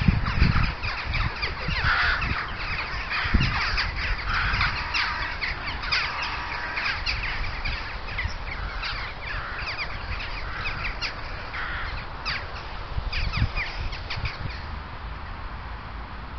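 Several corvids calling, many short calls overlapping, until they die away shortly before the end; a few low thumps at the start and twice later.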